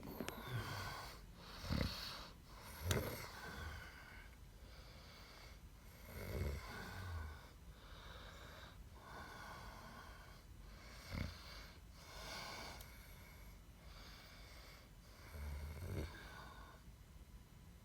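Snoring, one rasping breath after another, with a handful of louder, deeper snorts.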